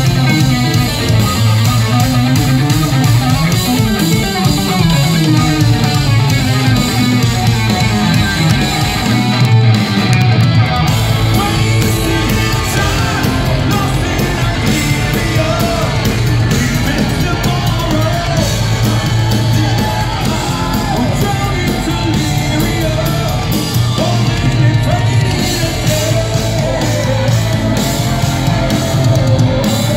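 Live heavy metal band playing: distorted guitar, bass and drums, with a male singer's voice coming in about a third of the way through.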